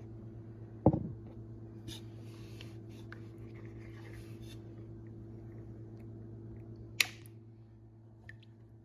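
Handling of a miniature toilet model: a soft thump about a second in, faint light rustling, and a sharp click near the end, over a steady low hum.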